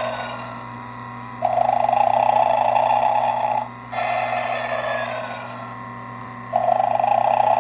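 Gemmy Snoring Santa's recorded snoring playing through its small speaker: snores repeating about every two and a half seconds, each followed by a whistle that falls in pitch, over a steady low hum.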